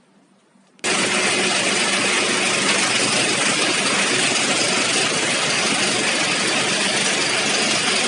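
Wheat combine harvester's engine running steadily with a loud, even rushing noise that cuts in abruptly about a second in, the air conditioning switched on while refrigerant is being charged.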